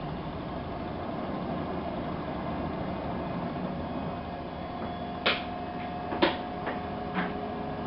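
Siemens iQ front-loading washing machine running a 90°C boil wash, with a steady running sound and a thin whine coming in about halfway through. Four sharp clicks follow in the last three seconds.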